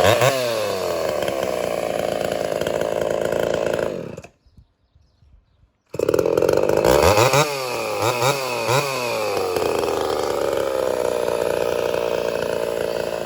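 Ported Homelite Super XL-130 chainsaw on its test run after carburettor idle and low-speed adjustment. It drops from full throttle to a steady idle, then cuts off about four seconds in. After about two seconds it is heard again at full throttle, is blipped several times, and settles back to a steady idle.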